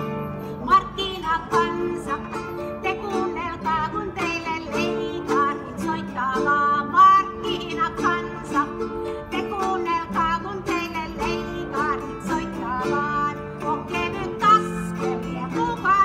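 Live medieval-style music on plucked strings: a harp and two lute-family instruments playing a quick picked melody over sustained low notes that shift every couple of seconds.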